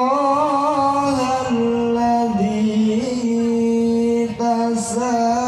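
A male qari reciting the Quran in melodic tilawah style, one voice drawing out ornamented, wavering notes and holding one long steady note through the middle before moving on.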